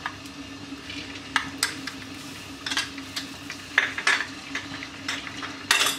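Ginger and garlic paste frying in oil in a steel pot, with a faint sizzle over a steady low hum. A metal spoon clinks and scrapes against the pot about seven times.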